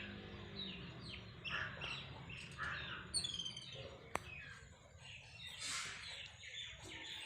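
Small birds chirping, a run of short falling chirps repeated again and again, with one sharp click about four seconds in.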